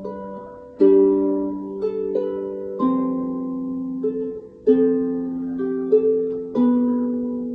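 Harp playing a slow, calm melody: chords plucked about every two seconds, each ringing on and fading before the next.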